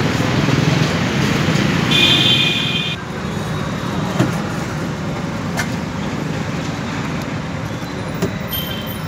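Steady street traffic noise, with a vehicle horn sounding for about a second, two seconds in, and a few sharp clicks later on.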